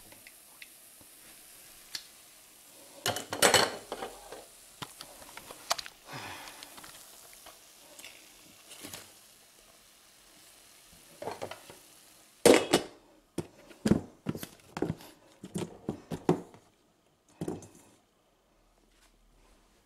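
Hot oil sizzling steadily in a frying pan, with clatters and knocks of pans and dishes, the loudest about three and a half seconds in and again about twelve seconds in. After the second clatter the sizzle is gone, leaving a run of scattered knocks and clinks.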